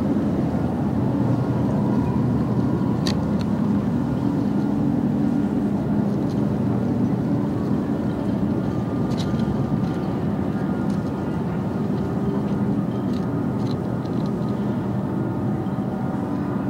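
Experimental ambient music built from field recordings and synthesizer textures: a dense, steady low rumble with held tones beneath it, and a few sharp clicks scattered through it.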